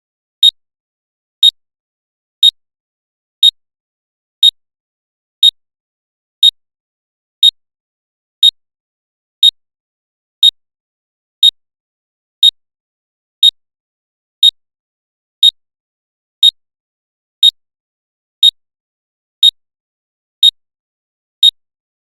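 Countdown timer's electronic tick sound: one short, sharp high click every second, evenly spaced with dead silence between, as the timer counts down its final seconds toward the finish alarm.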